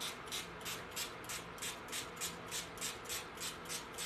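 Small atomizing spray bottle misting water onto a microgreens grow mat, pumped in quick, even trigger strokes at about three hissing sprays a second.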